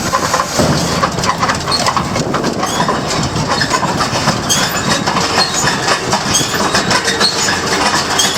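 New Holland 688 round baler running behind a tractor, a steady mechanical clatter full of rapid irregular rattles and clicks.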